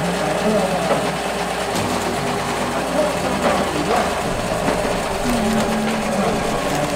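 Small electric motor and gear drive of a rotisserie corn grill running steadily, turning the corn skewers over charcoal, with voices in the background.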